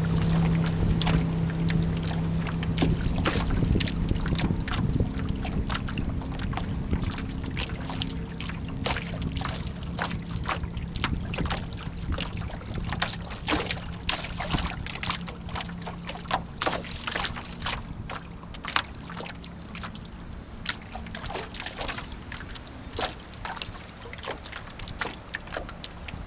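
Water slapping and splashing against the hull of a small sailboat under way, in many short irregular strokes. A low steady hum is loud at the start and fades out within the first few seconds.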